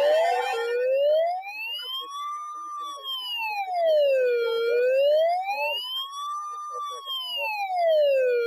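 Electronic siren in a slow wail, rising and falling about once every four seconds, that cuts off abruptly at the end. Under a second in, it takes over from a faster, repeated rising yelp sounding over steady tones.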